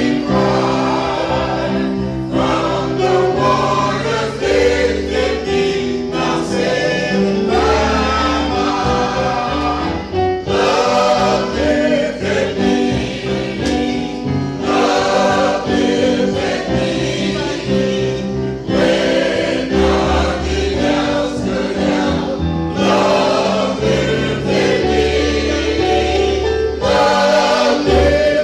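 Choir singing a gospel hymn over instrumental accompaniment with a steady, stepping bass line.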